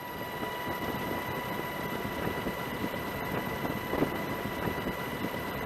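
A steady engine drone with a constant high whine running through it.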